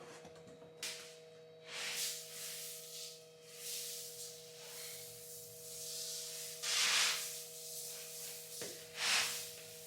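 Irregular scraping and rubbing sounds, each lasting about a second and coming every second or two, loudest about seven and nine seconds in, over a faint steady hum.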